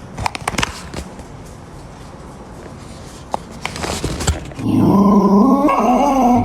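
A few knocks and clicks, then a dog vocalising loudly for the last two seconds or so with a long, wavering, pitched growl-like sound.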